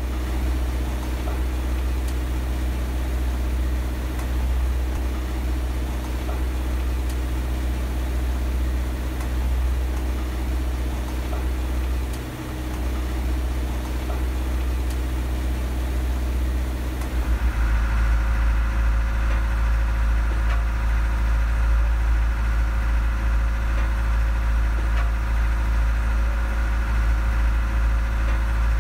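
Diesel machinery in a tugboat's engine room running steadily with a low hum. About two-thirds of the way through it grows a little louder and a higher whine joins it.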